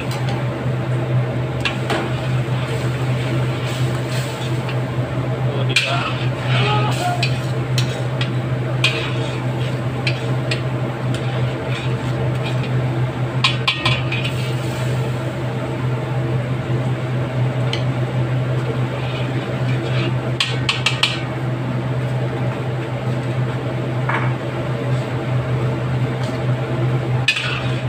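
Metal spoon scraping and clinking against a metal wok in short, scattered bursts while a cornstarch-thickened sauce is stirred, over a steady low hum.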